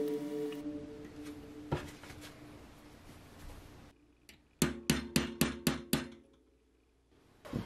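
Small hammer tapping a metal pin punch set against a bicycle's single-speed freewheel ring: one knock, then a quick run of about eight ringing metal taps lasting about a second and a half.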